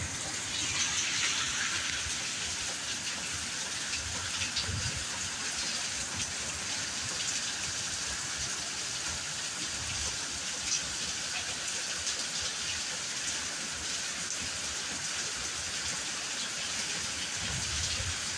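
Heavy rain pouring down in a steady hiss, with a few brief low bumps.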